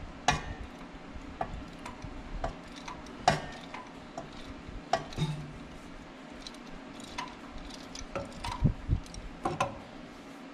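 Socket ratchet clicking as a long extension turns out an exhaust manifold bolt, with scattered sharp metal clicks and knocks from the tool.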